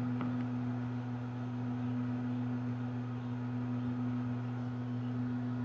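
Steady low hum of an egg incubator running, with a couple of faint clicks near the start as an egg is handled on its lid.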